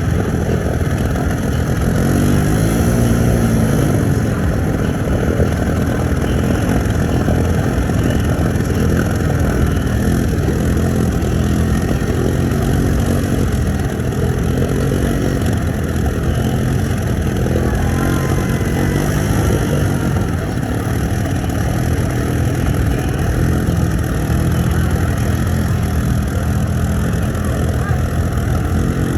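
ATV engines running and revving, the pitch rising and falling several times over a steady engine din.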